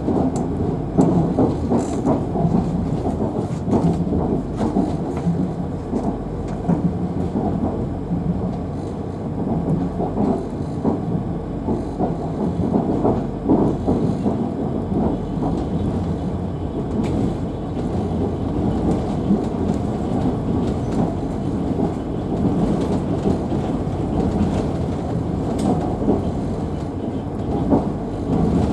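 Passenger train running along the track, heard through the open carriage window: a steady low rumble of wheels on rails with many small knocks and rattles.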